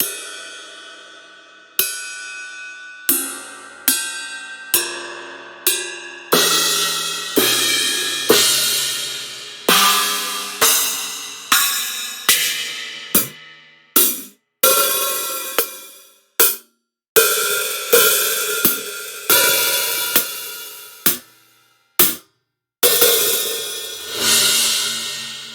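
Sampled metallic percussion hits from the Ferrum Kontakt library, played one at a time about once a second. Each is a sudden clang with a ringing, cymbal-like decay, and a few are cut off short.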